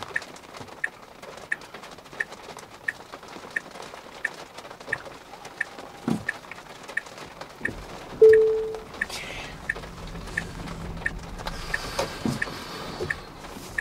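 A car's turn-signal or hazard indicator ticking steadily, about three ticks every two seconds, heard from inside the car. About eight seconds in a short beep sounds once, the loudest thing here, and a low rumble builds under the ticking toward the end.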